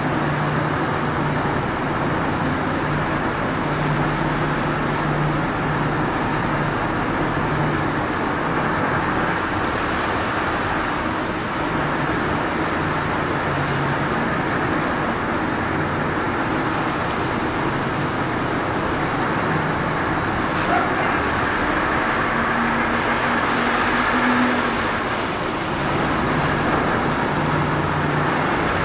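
Car ferry's engines running under power, a steady drone with a low hum that comes and goes, over the rush of the propellers churning the water.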